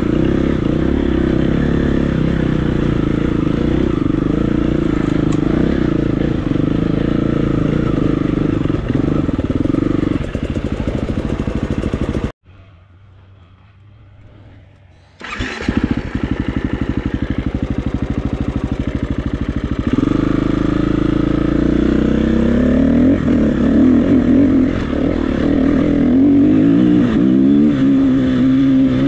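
KTM 350 EXC-F single-cylinder four-stroke engine running, which cuts out suddenly about twelve seconds in. About three seconds later it is started again, runs low and even for a few seconds, then revs up and down under riding.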